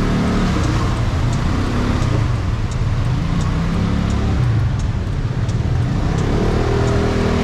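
Small motor scooter engine running at low speed, its pitch rising near the end as it accelerates.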